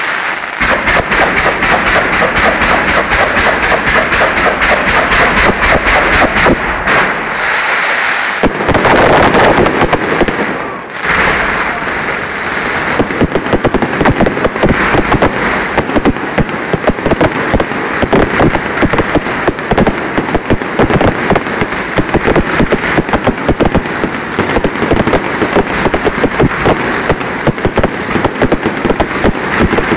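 Fireworks barrage: a dense, rapid string of loud bangs and crackles, many a second, with brief lulls about 8 and 11 seconds in.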